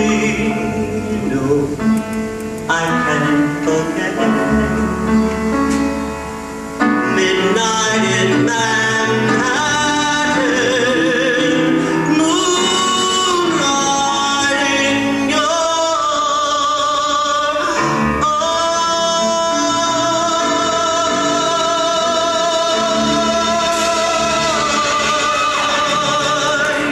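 A singer performing a live cabaret song over instrumental accompaniment, with long held, wavering notes in the second half.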